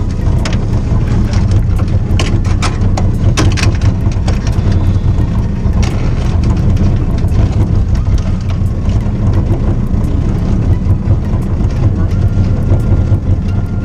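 Boat motor running steadily at low speed, a constant low hum, with sharp clicks and knocks from handling tackle over the first several seconds.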